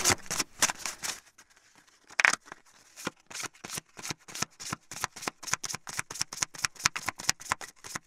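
A poker dealer shuffling a deck of playing cards. A flurry of card clicks is followed by a brief lull and one loud, sharp card snap about two seconds in, then an even run of quick card clicks, about six a second.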